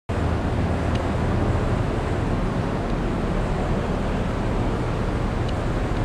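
Hydraulic power unit of a Harris Badger two-ram baler running: a steady electric-motor and pump hum under an even rushing noise.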